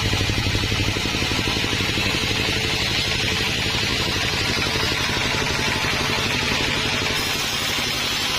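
Sawmill machinery running steadily: an engine-like drone with a fast, even pulse and a steady hiss over it.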